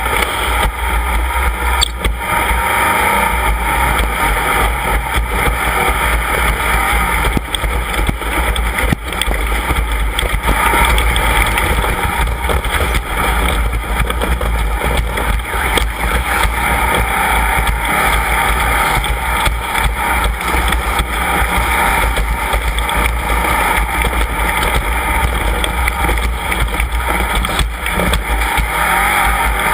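Off-road race vehicle driving at speed: steady engine and wind noise with a heavy low rumble, and a couple of brief knocks.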